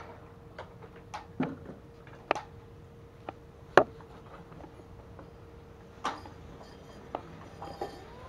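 Cleaver striking a round wooden chopping board in a few irregular, separate chops, the loudest about four seconds in, over a faint steady hum.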